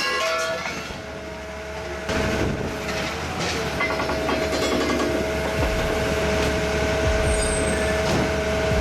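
Heavy scrap-handling machinery running: a diesel engine rumbling with a steady whine.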